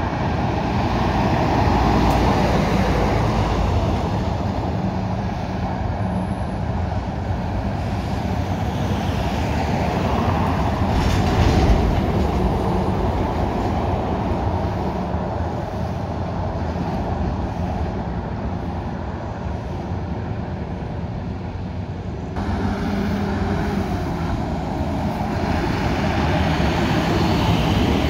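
Road traffic with heavy diesel vehicles, lorries and buses, passing close by: steady engine drone and tyre noise, with one louder pass around the middle.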